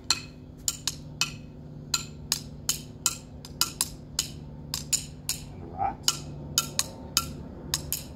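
Wooden drumsticks gently tapping on a big garden rock and a shell-shaped ornament beside it: about twenty sharp clicks in an uneven rhythm, each with a short bright ring.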